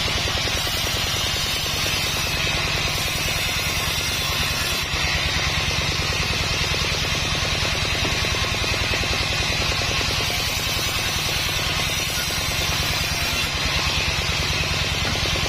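Large sawmill band saw cutting lengthwise through a Sonokeling (Indian rosewood) log. A steady low motor-and-wheel hum with a fast pulse runs under a constant hissing rasp of the blade in the wood.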